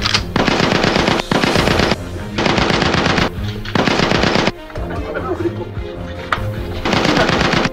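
Automatic-gunfire sound effect in four rapid-fire bursts, the first the longest, laid over background music.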